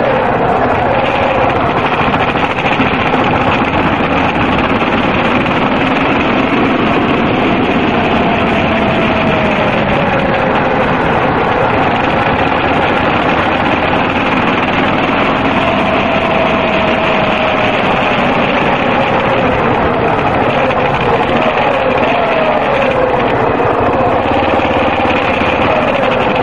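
Yamaha XT250's single-cylinder four-stroke engine running under way on the road, over steady wind rush. Its note rises and falls with the throttle, with several falling notes near the end as the bike slows into a bend.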